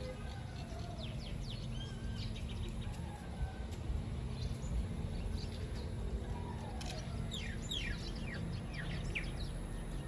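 Small birds chirping, many short, quick calls that drop in pitch, coming in clusters, over a steady low outdoor rumble.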